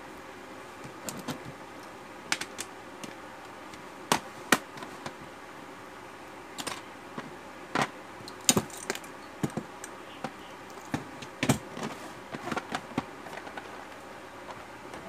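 Irregular clicks and taps of hands handling a smartphone and a clear plastic tool case on a rubber work mat, some in quick pairs, over a steady background hiss.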